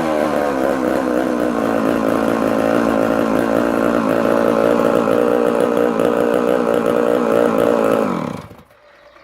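Danarm 110 two-stroke chainsaw engine running steadily with the bar and chain off, then shutting down about eight seconds in, its pitch falling as it dies.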